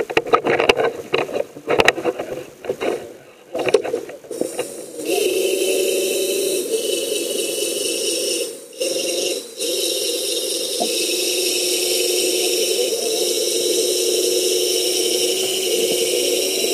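Small wireless underwater ROV at work: irregular rattling and knocking at first, then from about five seconds a steady electric thruster-motor whine that cuts out briefly twice around the middle.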